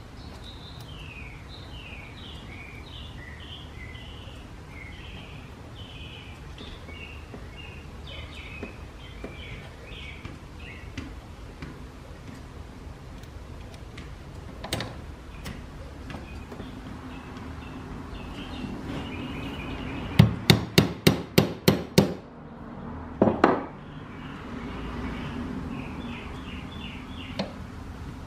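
A hammer tapping on metal parts of an old Pickering steam engine governor: a quick run of about seven sharp taps, roughly four a second, then two more. Birds chirp in the background.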